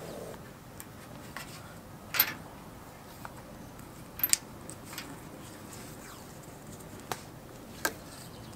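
Scattered sharp clicks and taps from hands working the light wiring and hardware at a boat trailer's tongue: the loudest about two seconds in, a quick double click around four seconds, and two more near the end.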